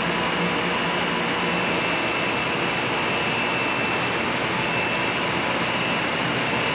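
Steady machinery noise of pool-room equipment (pumps, filters and air handling), with a faint high whine running through it.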